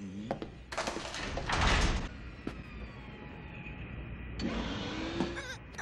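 Cartoon sound effects over the animated show's synth score: a short burst of rushing noise about a second and a half in, then slowly falling tones, with a low rising tone near the end.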